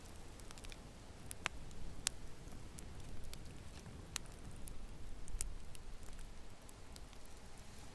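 Wood fire burning in a fireplace: a steady low rumble of flames with scattered sharp crackles and pops, a few louder snaps standing out around two, four and five seconds in.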